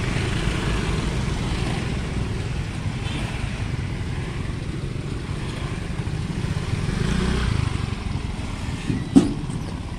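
Several small motor scooters running at low speed, a steady low engine rumble as they ride on one after another. A single sharp knock a little past nine seconds in.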